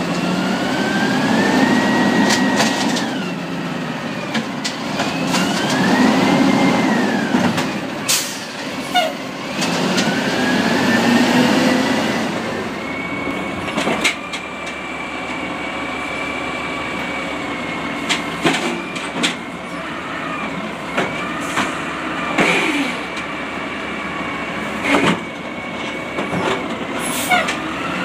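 Peterbilt automated side-loader garbage truck working its lifting arm: the engine revs up in three surges while the hydraulics whine, sliding up and down in pitch. A steady whine follows, broken by sharp clanks and bangs of the cart being lifted and shaken out into the hopper.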